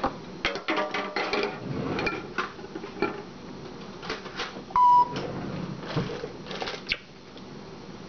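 Clinks and clatter of dishes and utensils at a kitchen sink as an African grey parrot rummages among them, with one short high beep about five seconds in.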